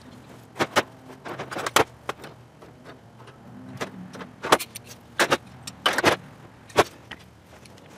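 Hand tools and a piece of copper tubing clinking and clanking as they are handled and set down on a workbench: a dozen or so irregular sharp metallic knocks.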